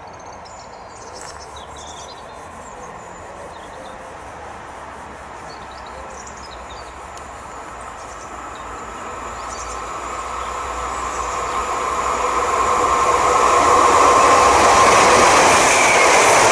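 Class 150 diesel multiple unit approaching, its running noise building steadily from faint to loud through the second half. Birds chirp faintly in the first few seconds.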